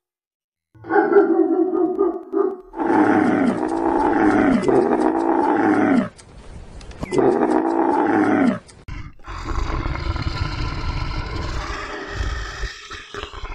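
Animal calls in turn: a dog's short pitched yelps, then long groaning calls from Bactrian camels, each falling in pitch, then a long, low, rough call from a polar bear.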